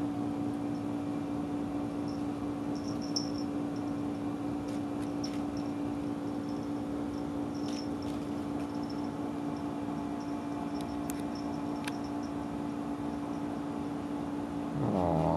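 A steady low mechanical hum, with a few faint light clicks and rustles scattered through it.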